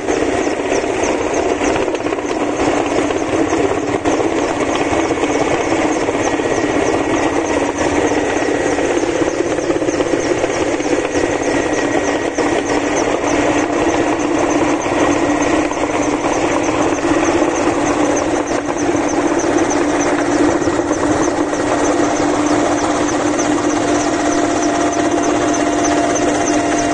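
Helicopter engines and rotor heard from inside the cabin: a loud, steady drone.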